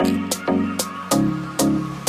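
Background electronic music with a steady beat, about two beats a second; the bass line drops to a lower note about a second in.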